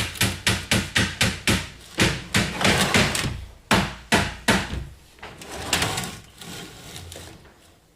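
Hammer driving nails into a wooden wardrobe under assembly: a quick run of sharp strikes about three a second, stopping about four and a half seconds in, followed by a few softer knocks.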